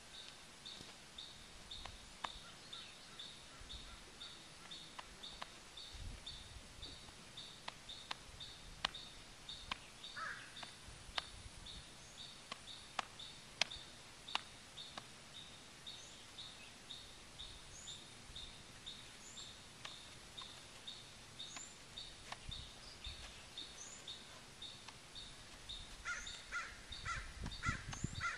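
Outdoor ambience with birds: a short high chirp repeated about twice a second, a few other brief bird calls and scattered small clicks, and near the end a quicker run of lower calls.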